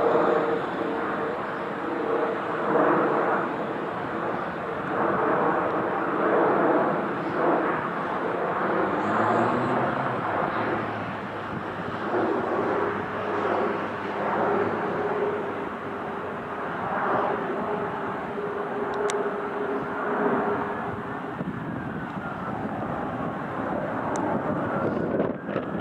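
Jet engines of a four-engined Airbus A340 passing overhead: a steady rushing roar with a held whine running through it, swelling and fading in slow waves.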